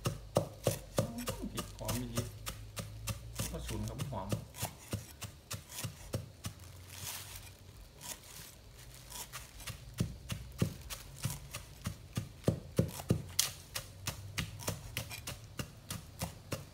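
Pestle pounding jaew bong chilli paste in a mortar: steady, evenly spaced strikes at about three a second, easing off for a few seconds midway before picking up again.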